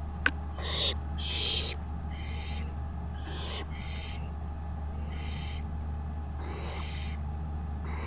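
Barn owls giving repeated rasping, hissing calls, about eight in a row at roughly one a second, each lasting under a second. A single sharp click comes just after the start, and a steady low hum runs underneath.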